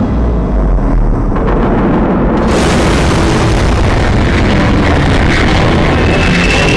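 Explosion sound effect: a deep rumble that swells into a loud, sustained roar about two and a half seconds in, with a rising whine starting near the end.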